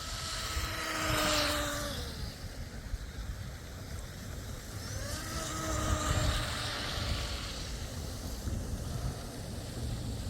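Electric RC tunnel-hull boat's brushless motor whining as the boat runs on the water, twice sweeping past with the whine falling in pitch, over a steady low rumble.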